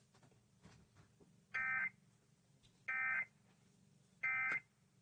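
Emergency Alert System end-of-message signal: three short bursts of digital data tones about 1.3 seconds apart, marking the end of the alert broadcast.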